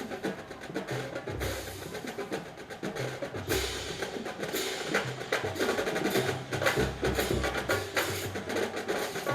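Drum and bugle corps drum line playing a marching cadence: rapid sharp snare strokes over low bass drum hits.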